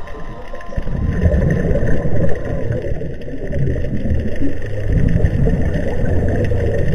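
Low, wavering rumble of water noise heard underwater.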